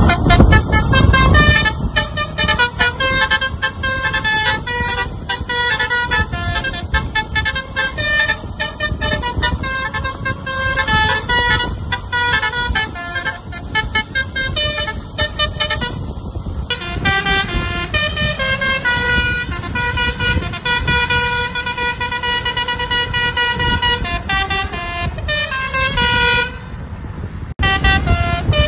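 Telolet basuri musical air horns of Indonesian tour buses playing a tune, fast runs of short pitched notes stepping up and down, with a brief break near the end.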